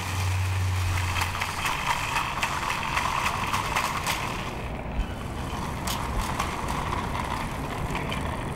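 Shopping cart rolling over street pavement, its wheels and wire basket rattling with many small irregular clicks, over city traffic noise. One sharper knock about five seconds in.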